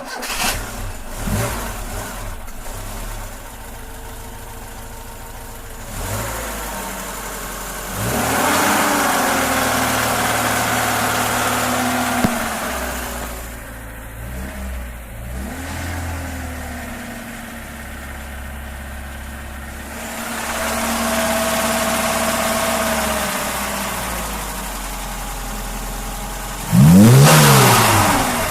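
VAZ 2106 four-cylinder engine idling, then held at raised revs three times, with a quick sharp blip near the end. The owner hears a knock from the engine at mid revs and does not know its cause.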